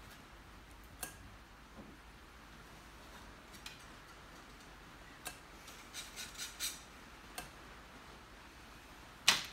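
Scattered light clicks and taps of painting tools working at an easel, against the palette and the canvas. There is a quick run of taps about six seconds in, and a sharper knock just before the end.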